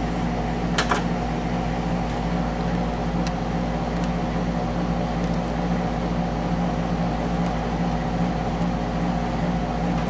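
A steady low mechanical hum with several fixed low tones, and a single sharp click about a second in.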